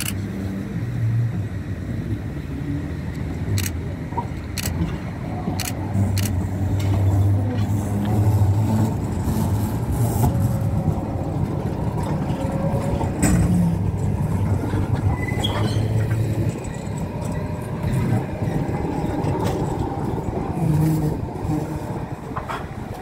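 Duewag MGT6D low-floor tram running past close by: a steady low rumble from its running gear, with a few sharp clicks as the wheels cross the track.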